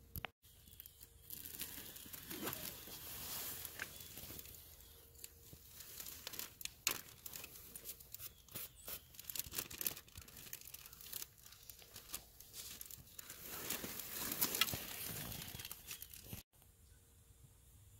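A plastic zip-top snack bag crinkling and rustling as it is handled, full of irregular sharp crackles, cutting off suddenly near the end.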